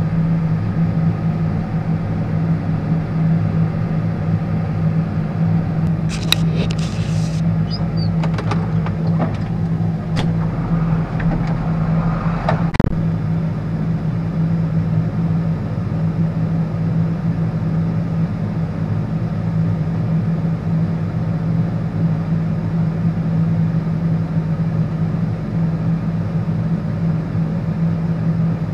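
John Deere tractor's diesel engine running steadily, heard from inside the cab. Between about six and thirteen seconds in, a scatter of sharp clicks and knocks, the loudest near the end of that stretch.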